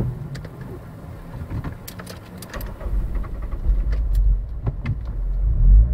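Car engine and tyre noise heard from inside the cabin while driving on a wet track: a low rumble that grows louder about halfway through, with scattered small clicks.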